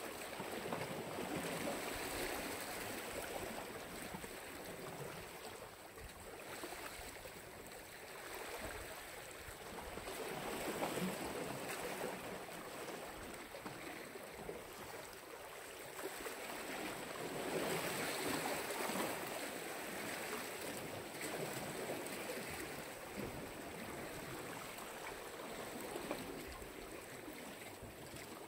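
Black Sea waves washing onto the shore, the rush of water swelling and falling back every several seconds.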